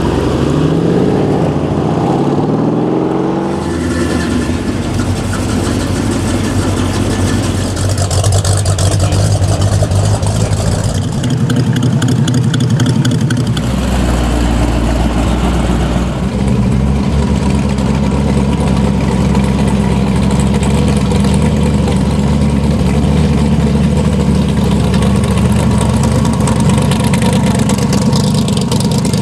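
Engines of show cars driving past one after another: a Mercedes-AMG CLS's twin-turbo V8 accelerating away with its pitch rising at first, then a first-generation Chevrolet Camaro passing about halfway through. For the last dozen seconds a lowered custom Chevrolet pickup's engine rumbles steadily at low revs.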